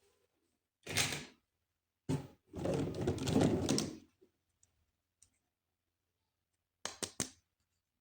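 Toy and packaging being handled: a short rustle about a second in, a longer scraping rustle, then three quick clicks near the end.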